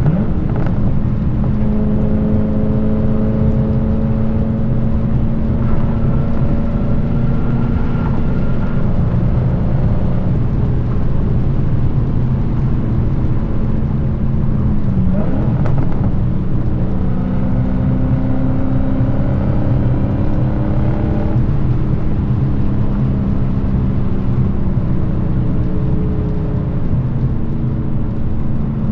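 Supercharged Hemi V8 of a Dodge Challenger SRT Hellcat with its active exhaust valves deleted, running steadily at a cruise with a deep, even exhaust drone. About fifteen seconds in, the pitch dips briefly and then climbs back up.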